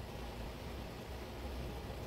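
Steady low hiss with a faint low hum; no welding arc is struck.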